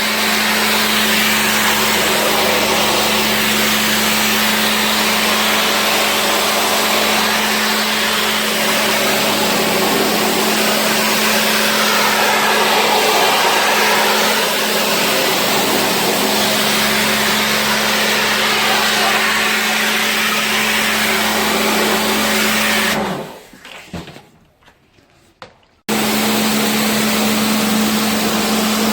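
A motor-driven cleaning machine running steadily, a rushing hiss over a constant hum, as packed dust is cleared from an air conditioner's evaporator coil. It stops about 23 seconds in, goes nearly silent for about three seconds, then starts again abruptly.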